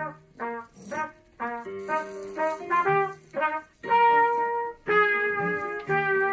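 A trumpet playing a melody: a run of short, detached notes, then longer held notes from about four seconds in.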